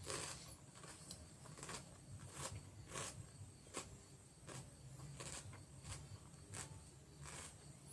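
Mouth chewing raw cucumber close to the microphone: soft, crisp crunches at a steady pace of about three every two seconds.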